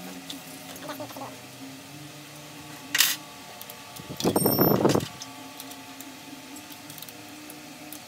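Hands working a folding bike's wheel hub and disc-brake hardware: a sharp metallic click about three seconds in, then a loud rattling burst lasting nearly a second.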